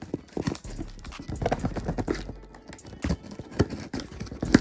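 A cardboard shipping box being opened and handled by hand: irregular knocks and taps on the cardboard, with packing paper rustling. There is a sharper knock near the end.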